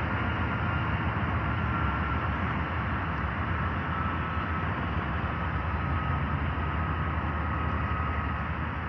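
Freight train's diesel locomotives running with a steady low rumble, joined by a faint high whine that slowly falls in pitch.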